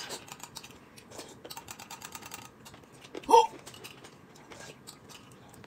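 Rapid light clicking of chopsticks and spoons against porcelain bowls, with small eating noises. About three seconds in, one brief rising vocal sound is the loudest thing.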